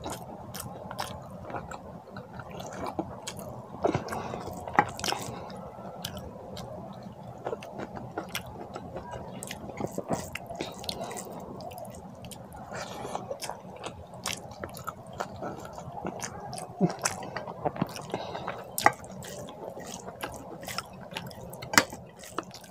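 Close-miked chewing and wet mouth smacks of a person eating curried rice by hand, with squelching as fingers squeeze rice and curry together. Many short sharp clicks and smacks, irregular, throughout.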